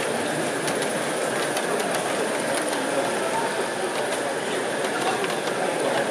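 Garden-scale model train of a blue locomotive and coaches running along the track, with a steady rolling rumble and light clicking of its wheels over the rail.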